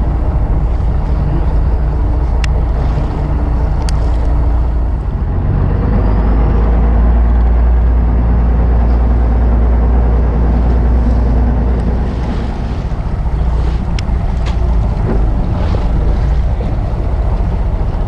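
Fishing boat's engine running with a steady low drone, louder through the middle, over water rushing along the hull. A few sharp clicks sound now and then.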